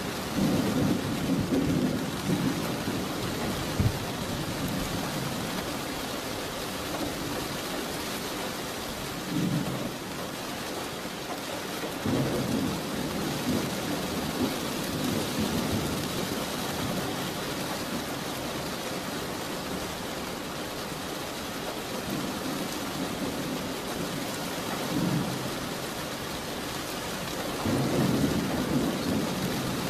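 Steady rain with thunder rumbling several times; the longest rolls come at the start and near the end.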